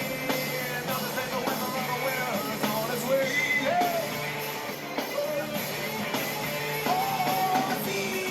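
A rock song playing, with a singing voice over the band.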